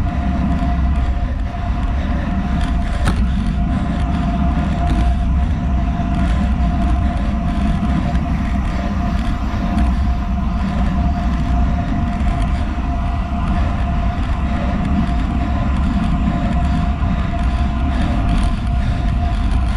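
Wind buffeting the handlebar-mounted action camera's microphone, with tyre noise from a carbon-wheeled road bike rolling fast on asphalt at about 35–40 km/h. It is a steady, loud rush with a faint constant hum above it.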